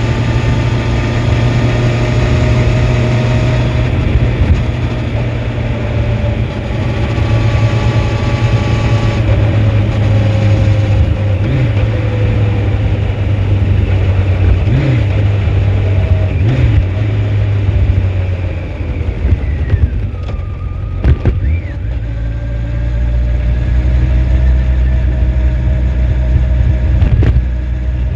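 2004 Honda CBR1100XX Blackbird's inline-four engine running steadily on the move. About two-thirds of the way through, the engine note drops and eases off, with a few sharp clicks, then settles into a lower, steady drone.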